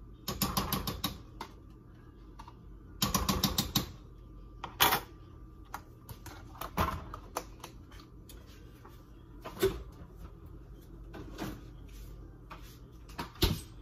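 A spoon clicks and scrapes in two quick runs near the start, then knocks singly now and then, as butter spread is scooped from a plastic tub.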